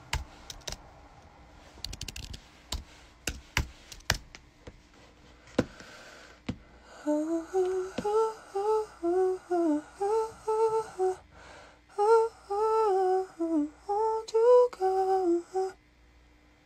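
Several sharp clicks or taps, then a voice humming a slow melody with gliding notes from about seven seconds in until shortly before the end.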